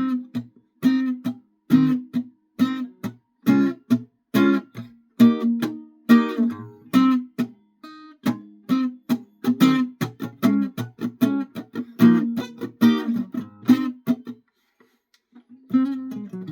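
Guitar strummed in a steady rhythm of chords, about two strokes a second; the playing breaks off briefly near the end and then starts again.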